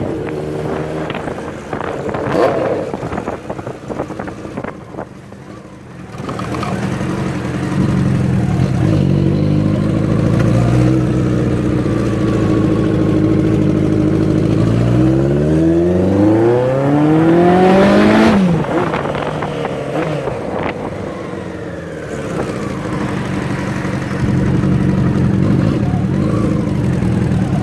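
Honda CBX 750's air-cooled inline-four running through a 4-into-1 exhaust on a ridden motorcycle. Past the middle the engine note rises steeply for about three seconds under acceleration, then drops off suddenly as the throttle closes, and it settles to a steady run.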